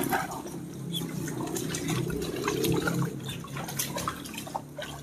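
Gurgling, splashing water with faint scattered knocks, fading near the end.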